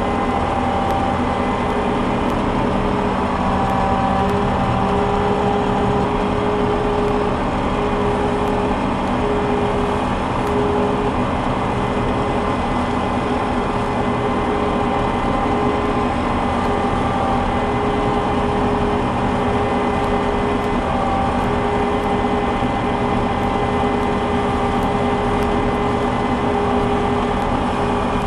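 Combine harvester running steadily while harvesting soybeans: a constant machine drone carrying steady whining tones, one of which keeps cutting out and returning.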